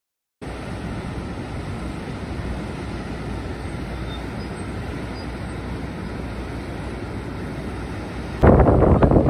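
Steady rush of turbulent water from the Reversing Falls tidal rapids on the Saint John River. About eight seconds in it suddenly gets much louder and rougher.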